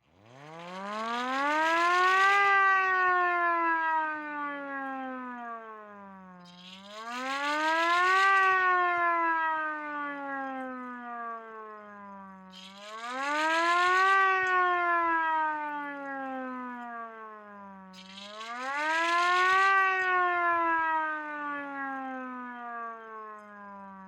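Electromechanical siren being tested, winding up from a standstill into a rising wail and then sliding down in pitch, four times over about every six seconds. It is switched on and off to make the wail, and it winds down slowly at the end.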